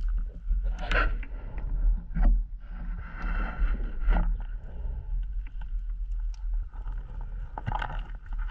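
Scuba diver's exhaled bubbles gurgling out in bursts every few seconds over a steady low rumble, heard underwater through the camera housing.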